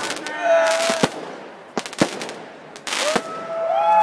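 Fireworks going off: sharp bangs about once a second, with whistling tones over them that rise in and hold near the end.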